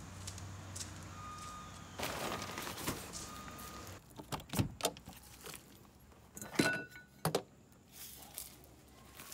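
Clicks and metal knocks as a key is worked in a lock on a pop-up camper's aluminium body, starting about four seconds in. Before that, faint reversing beeps and a low hum are heard.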